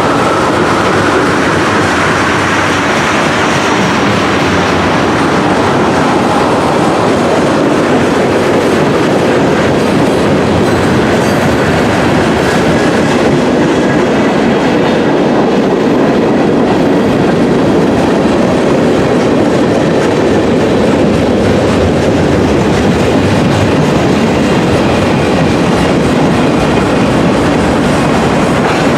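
CSX freight train rolling past close by, its cars' wheels running steadily over the rails.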